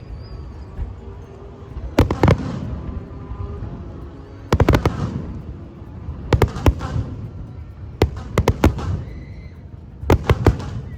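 Fireworks going off in quick clusters of sharp bangs and cracks, a new group about every two seconds, over a steady low rumble.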